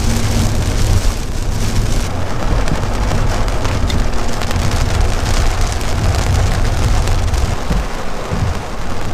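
Steady rain on a city street with a deep low rumble underneath, picked up by a Rode VideoMicro camera-mounted microphone.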